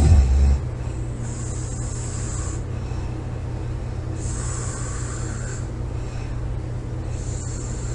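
A sleeping woman snoring: a loud, deep snore in the first half second, then three hissy breaths about three seconds apart, over a steady low hum.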